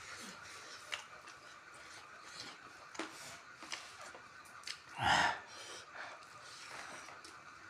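Quiet eating sounds with faint scattered clicks, and one short, loud, sharp rush of breath about five seconds in.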